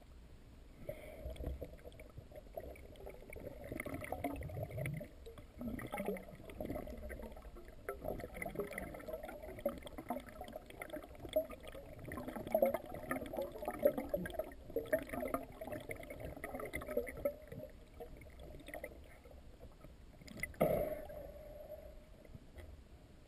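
Underwater noise picked up by a camera held below the surface: an uneven, muffled crackling and rumbling of moving water, with one sharper knock near the end.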